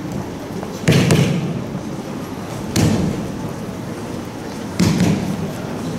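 Three heavy thuds about two seconds apart, each ringing briefly in a large hall: judoka landing on tatami mats in a kata performance.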